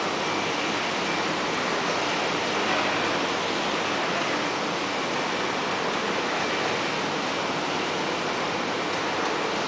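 Steady, even noise of machinery running in a factory hall, with no rhythm or knocks and a faint high whine in it.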